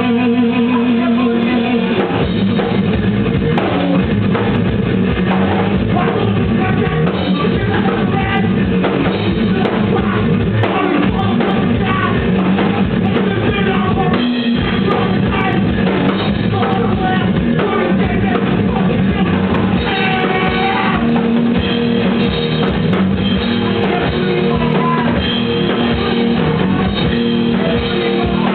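New Jersey hardcore punk band playing live: electric guitar, bass and drum kit driving hard and loud without a break, with a vocalist singing over them.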